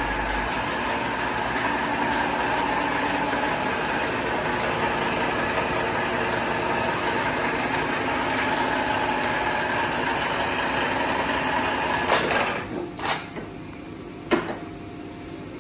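A 1970 Okuma LS general-purpose lathe running under power, a steady mechanical whir with a constant gear whine. About twelve seconds in it winds down, with three sharp clunks over the next couple of seconds.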